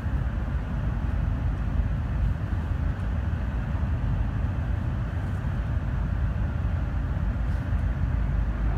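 Steady rumble and running noise of a Tokaido Shinkansen Kodama train at speed, heard inside the passenger cabin.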